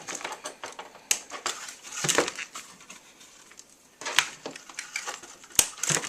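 Scissors snipping at small plastic ties on a plastic blister package while the packaging crinkles and rustles. A few sharp clicks stand out, about a second in and again near the end.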